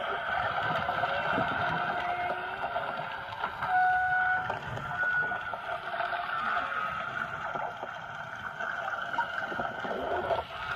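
Engine noise of a nearby boat picked up underwater and played through a hydrophone speaker: a steady, narrow-sounding hiss-like drone, with a few short high tones about four and five seconds in.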